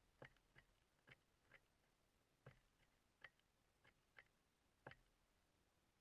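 Hairy woodpecker pecking at a wooden seed feeder: about ten faint, sharp taps at uneven intervals, stopping after about five seconds.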